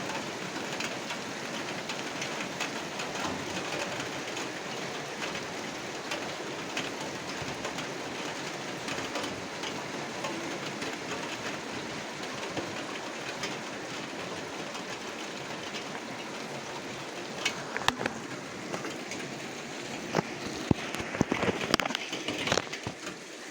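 Steady rain falling, an even hiss of many drops, with a few louder sharp taps in the last several seconds.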